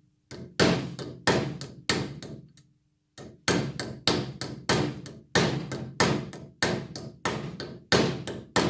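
Hammer striking the rivets of a bicycle bell's gear mechanism on a wooden block, peening them over so the gear, which should be fixed but was turning, is tightened to its plate. A quick, steady run of strikes, about three a second, with a short pause about three seconds in.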